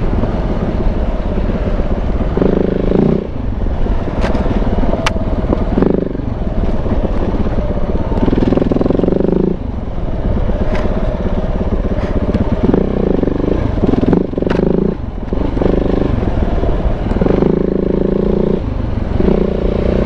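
Single-cylinder engine of a big-bore KTM 690 running as the bike is ridden. Its note swells and drops away every second or two as the throttle is opened and shut, with a few sharp ticks now and then.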